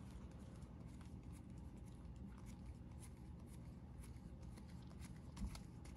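Faint sliding and soft ticks of baseball trading cards being flipped through by hand, over a low steady background hum, with a soft low bump near the end.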